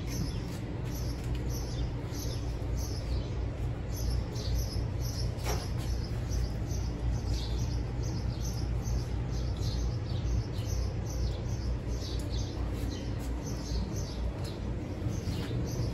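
Small birds chirping in quick, evenly repeated high chirps over a steady low hum.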